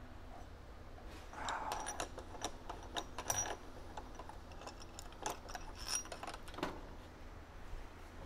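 Scattered light metallic clicks and clinks of tools and headset parts being handled while the upper headset race is pressed into the head tube, some with a brief high ring.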